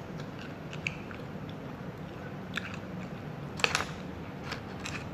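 Garlic bread being bitten and chewed close to the microphone, with a few short crisp crunches, the loudest a little before four seconds in.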